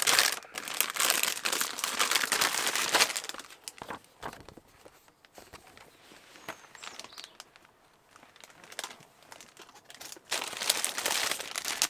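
Packaging of a partwork magazine issue being handled and opened, with bursts of crinkling and crumpling: a loud stretch at the start, quieter scattered handling in the middle, and another loud burst near the end.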